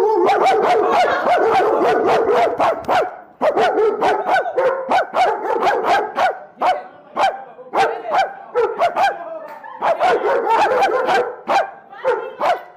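A dog barking rapidly and repeatedly in runs of short barks, with brief pauses about three seconds in and near the end.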